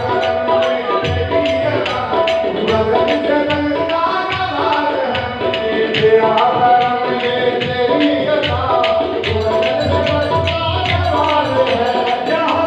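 Live Sufi qawwali music: tabla drumming a steady, driving beat under sustained harmonium notes, with singing.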